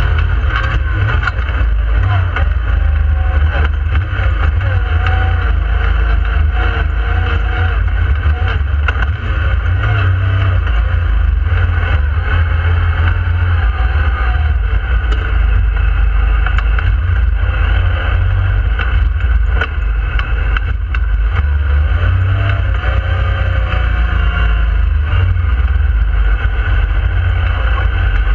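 Yamaha YXZ1000R side-by-side's three-cylinder engine running under way, heard from inside the cab: a steady deep rumble whose pitch rises and falls as the throttle is worked, over a constant hiss of wind and trail noise.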